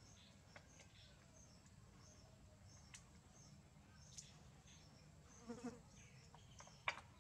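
Near silence: faint insect chirping repeating evenly over a low hum, with a few sharp clicks from shells being cracked open by hand, the loudest near the end, and a short low sound a little after five seconds.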